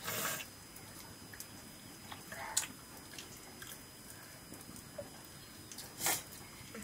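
People eating rice by hand from metal plates: chewing, with a few short scrapes and faint clicks, the loudest about a second before the end.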